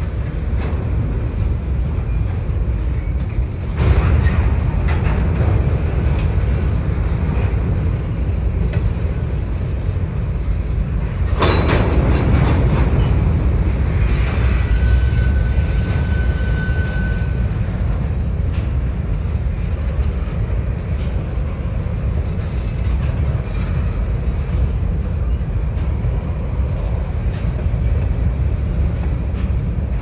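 Covered hopper cars of a freight sand train rolling past close by: a steady low rumble of wheels on rail, with a couple of louder clanks, about four and eleven seconds in, and a brief thin squeal around the middle.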